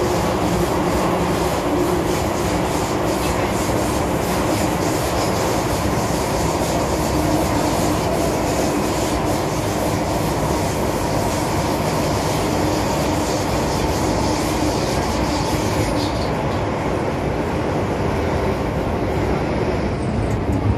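MTR Tsuen Wan Line M-Train electric multiple unit running between stations: a steady loud rumble of wheels on rail with some clickety-clack and wheel squeal, over a low steady hum. The high hiss eases off about 16 seconds in.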